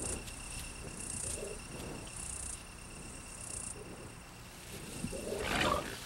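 Night insects, crickets or katydids, calling: a steady high trill with louder high buzzing bursts about once a second. A short rough rustling or snuffling sound comes near the end.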